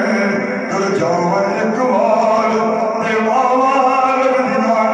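A man singing a naat, a devotional praise song, unaccompanied into a microphone, in long drawn-out notes that slide and waver.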